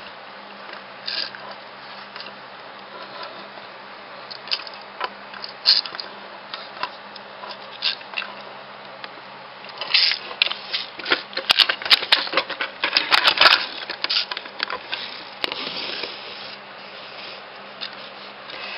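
Small toy trains being handled and set down on a wooden table: scattered clicks and taps, with a dense run of clicks and knocks about ten to fourteen seconds in, over a steady low hum.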